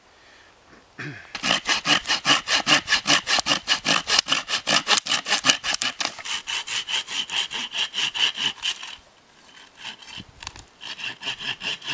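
Small hand saw cutting through a dry stick with quick, even back-and-forth strokes, about five a second. It starts about a second in, stops briefly near the end, then resumes.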